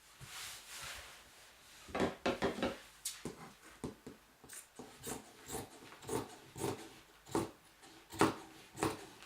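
Scissors cutting through fabric: a steady run of snips, about two a second, starting about two seconds in.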